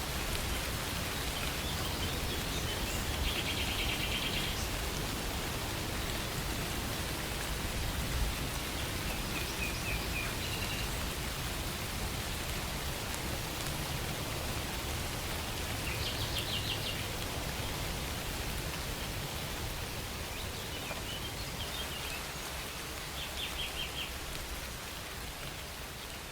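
Steady rain falling, with a bird giving short, rapid trilled calls a few times.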